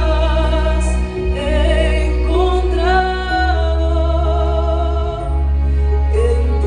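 Gospel song with a sung vocal line, long notes held with vibrato over a steady low bass accompaniment.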